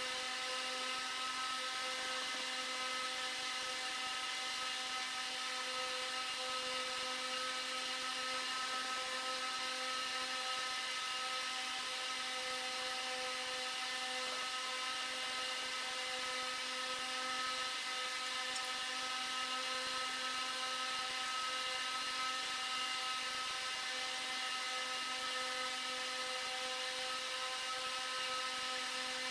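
A small motor running steadily with a constant-pitched whine that never changes speed or load.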